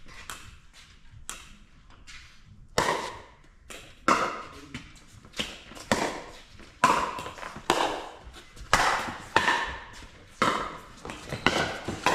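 A pickleball rally: sharp pops of paddles striking the hollow plastic ball, about a dozen of them, coming roughly once a second in the second half. Each one echoes briefly in a large indoor hall.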